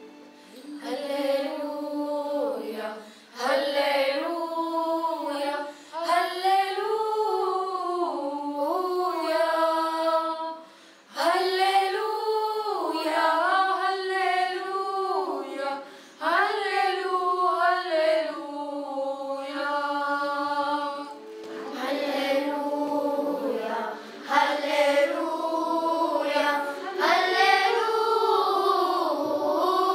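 Children's choir singing a song together, in phrases of a few seconds separated by short gaps.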